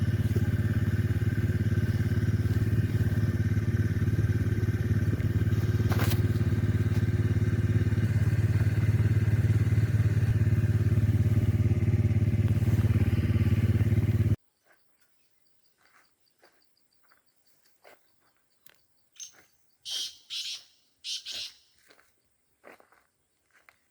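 An engine running steadily at a constant speed, cutting off abruptly about fourteen seconds in. After that it is quiet, with faint clicks and a few short high chirps near the end.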